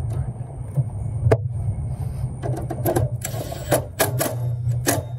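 Cordless Makita impact driver on the lug bolts of a meter base: sharp metal clicks and knocks from the tool and fittings, with a short burst of the driver running a little after three seconds in. A steady low hum runs underneath.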